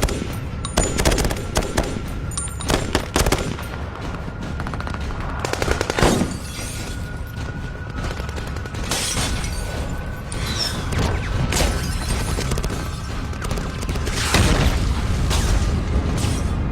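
Heavy firefight: volleys of automatic-weapon and rifle fire with booms, dense clusters of rapid shots coming in waves, laid over tense film-score music with a long held note.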